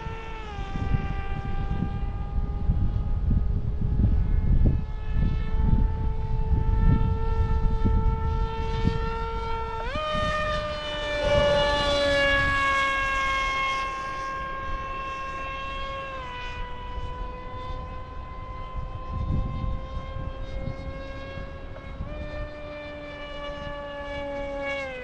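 Motor of a 3D-printed RC F-22 model jet in flight: a steady high whine that steps up in pitch about ten seconds in, drops back around sixteen seconds, then rises and drops again near the end as the throttle is changed. Wind rumbles on the microphone through the first ten seconds.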